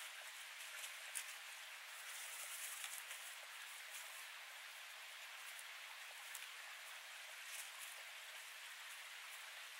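Faint steady babble of a small stream running over rocks, with a few light clicks and taps of dry sticks being set down on stone, the sharpest about a second in.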